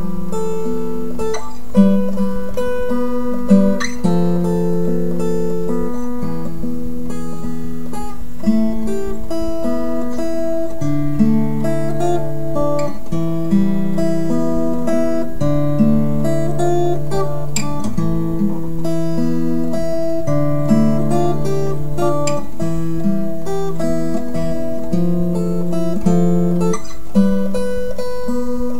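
Instrumental music played on acoustic guitar, with chords and notes that change every second or two at an even level.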